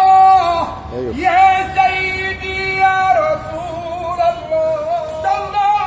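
A street incense seller chanting in a high voice, holding long notes with wavering melismatic ornaments and a brief break about a second in.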